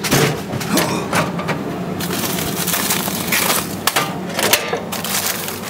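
A frozen-bait vending machine dispensing a pack: a sharp knock at the start, then the delivery flap clacking and a plastic bag of frozen sardines crinkling as it is pulled from the bin. A steady low hum runs underneath.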